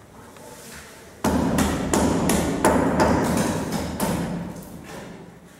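A hammer striking a masonry wall: a run of sharp, repeated blows that starts suddenly about a second in, made while cutting openings for electrical plug and switch boxes.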